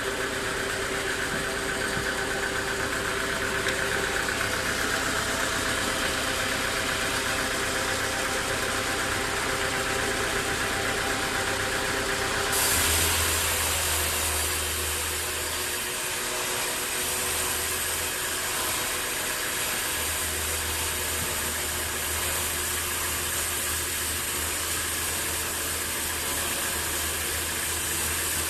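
Sawmill machinery running steadily, with an engine-like hum and several steady tones. About thirteen seconds in, the sound changes, turning brighter and hissier with a low hum that drops out and returns.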